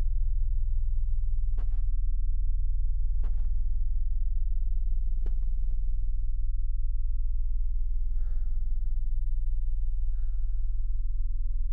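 Film sound design: a steady low drone, with a brief swish about every couple of seconds, three in all. Near the end come two softer hissing sounds and a faint high whine.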